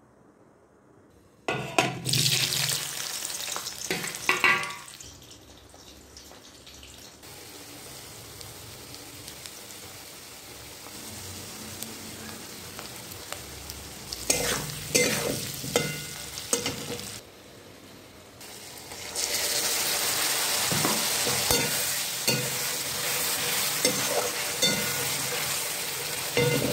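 Boiled potato pieces frying in hot oil in a kadai, stirred and scraped with a wooden spatula, with sizzling and knocks of the spatula against the pan. After a quiet first second and a half the sizzle comes in loud; it is softer in the middle, pauses briefly about two-thirds of the way through, then comes back as a steady loud sizzle to the end.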